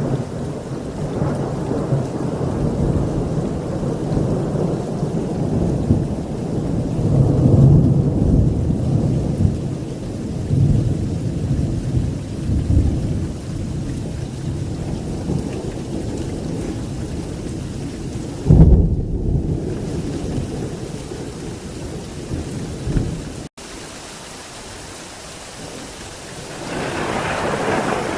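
Thunderstorm: long rolling thunder rumbling over heavy rain, with a sudden loud thunderclap about two-thirds of the way through. The rumble dies down to steady rain for a few seconds, then builds again near the end.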